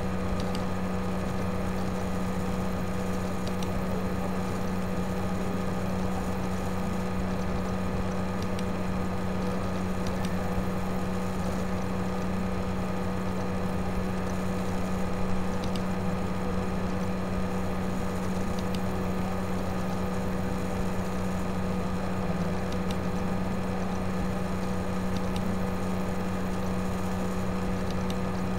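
Steady electrical hum with a constant background hiss, the noise floor of the recording, broken by a few faint clicks.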